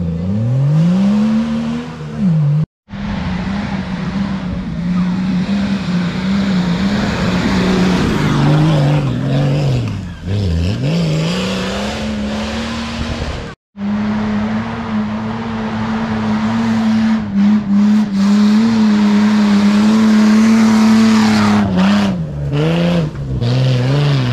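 Engine of an off-road 4x4 revving hard under load, the revs climbing and falling and held high for several seconds near the middle, over a broad rushing noise. The sound drops out abruptly twice.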